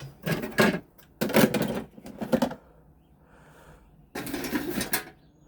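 Metal and plastic items clattering and rattling as they are picked up and moved, in four separate bursts with short pauses between.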